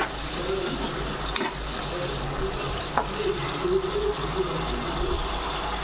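Tomato masala gravy sizzling and simmering in a non-stick pan as it is stirred with a spatula, with a couple of light clicks of the spatula against the pan.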